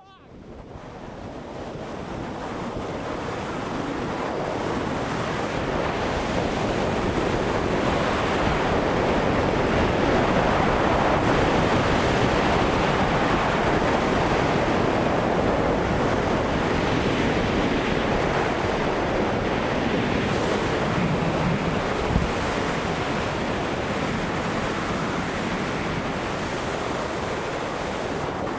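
Steady rushing wind on the microphone that swells to a peak midway and eases a little, with one brief knock late on.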